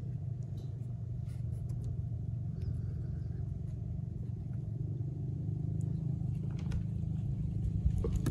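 Low steady rumble that grows slowly louder, with a few faint clicks and rustles of a cabbage stem being pressed into a hollowed white radish.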